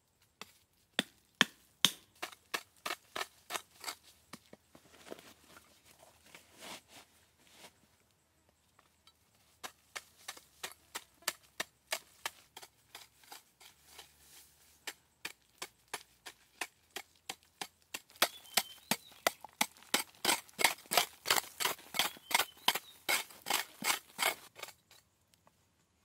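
Repeated chopping strikes of a blade on wood, at about two to three a second, pausing briefly partway through, then a faster, louder run near the end.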